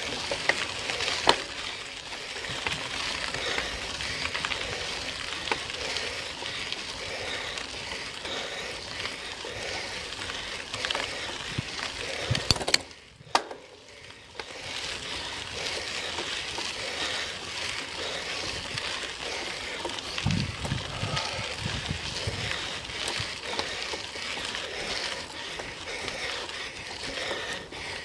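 Steady hiss of a bicycle ride: tyres rolling on the road surface and wind on the microphone, with scattered clicks and knocks. The sound drops away briefly about halfway through.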